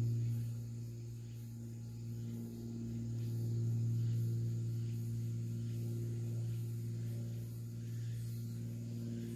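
A steady low hum with a few fainter higher overtones, swelling and fading slowly in loudness.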